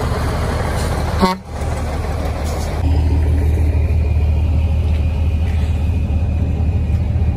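Diesel truck engine running with a steady low rumble, briefly dropping away about a second in.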